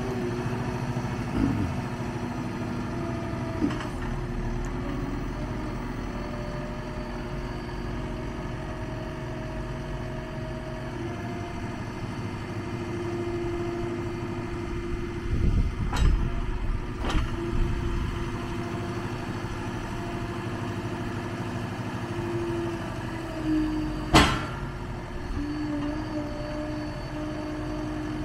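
2019 JCB 531-70 telehandler's four-cylinder diesel engine running steadily while its hydraulics raise and extend the telescopic boom and then bring it back down, with a whining tone that steps and shifts in pitch as the boom moves. A few sharp knocks come through, the loudest a little over three-quarters of the way in.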